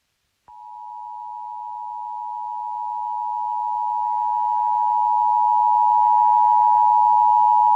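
The Emergency Alert System two-tone attention signal (853 and 960 Hz sounded together), a steady dual-pitched tone that starts about half a second in and grows gradually louder, signalling an emergency alert broadcast.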